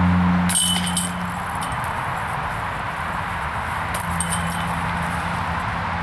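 Disc golf basket chains jangling briefly twice, about half a second in and again about four seconds in, as discs strike them. A steady hiss runs underneath, with a low hum that fades away early.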